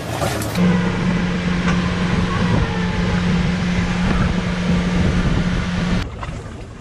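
Motorboat engine running steadily under way, a constant hum over the rush of wind and water. It cuts off abruptly about six seconds in, leaving a quieter background.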